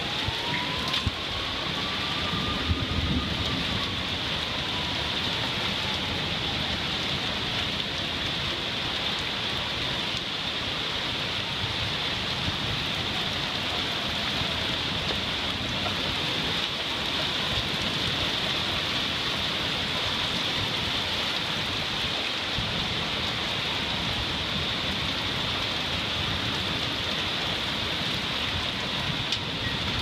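Heavy thunderstorm rain pouring down steadily as an even, dense hiss.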